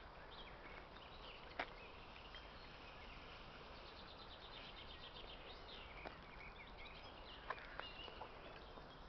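Near-quiet open-air background with faint, high bird chirps, including a brief rapid trill partway through, and a few soft clicks.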